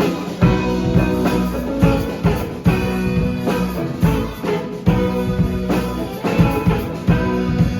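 Band playing an instrumental passage: drum kit keeping a steady beat over bass and guitar chords.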